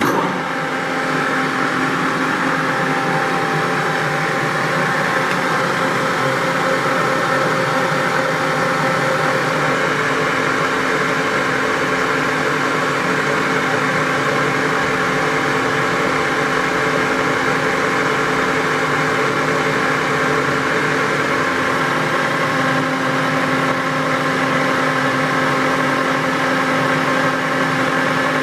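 Bridgeport/Romi Tormax 13-5 gear head engine lathe running: the 5 hp drive motor and geared headstock start up suddenly and run with a steady mechanical whine of several tones. The pitch of the whine shifts slightly about ten seconds in and again a little past twenty seconds.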